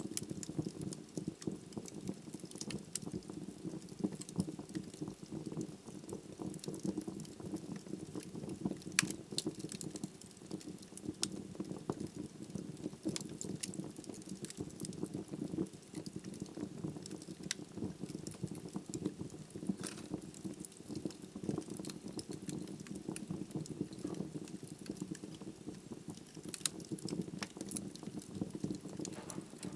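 Logs burning in a fireplace: a steady low rush of flame with scattered sharp wood crackles and pops, one louder pop about nine seconds in.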